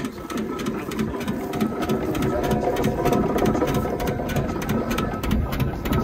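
Steam ploughing engine running, a rapid, even mechanical clatter from its engine and gearing over a low rumble.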